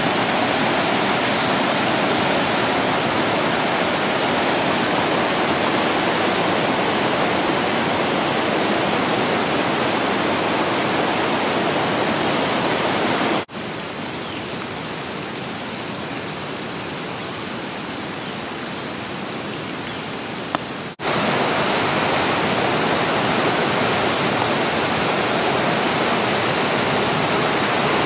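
Flooded creek rushing in spate: a steady, loud roar of fast white water. About halfway through, a cut brings a quieter stretch of water running over stone ledges for about seven seconds. Then the loud rush of the flood returns.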